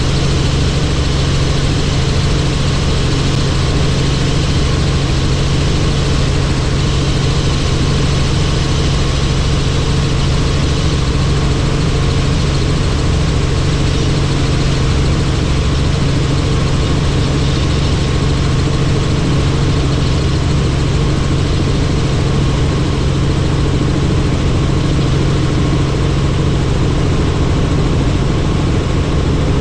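Helicopter running steadily: a constant low hum of rotor and engine with an even rushing noise over it, unchanging throughout.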